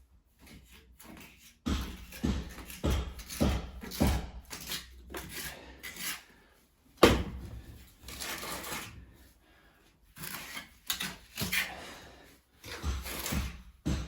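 Irregular knocks and scraping strokes, with one sharp knock about seven seconds in.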